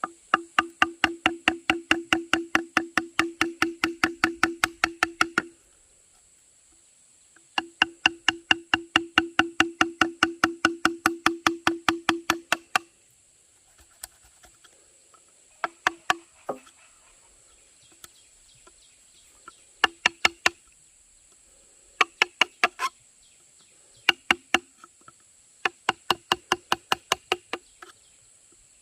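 Rapid, evenly spaced knocking on hollow bamboo with a ringing tone, about five strikes a second: two long runs of several seconds, then shorter bursts of a few strikes each.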